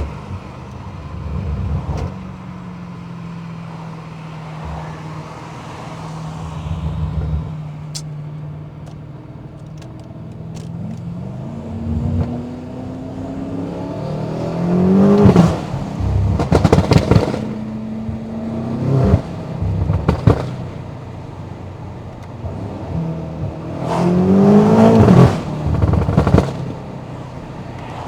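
Stage 2-tuned BMW M8 Competition twin-turbo V8 cruising steadily, then revving up hard in two acceleration pulls, one about halfway through and one near the end. Each pull is followed by a quick run of exhaust pops and crackles.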